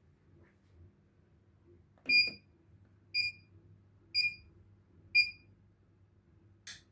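Treadmill control console beeping: four short high electronic beeps, one a second, with a knock at the first beep and a sharp click near the end, over a faint low hum. Such an evenly timed beep series is typical of a treadmill's start-up countdown.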